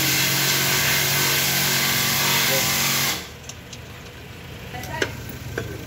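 A loud steady hiss with a low hum beneath it cuts off suddenly about three seconds in, leaving a few faint clicks and taps.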